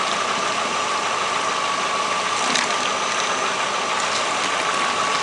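Renault Clio 1.0 8v D7D engine idling with its electric radiator fan running, while tap water rushes through a cooling-system flushing rig, a steady even sound with a thin steady whine.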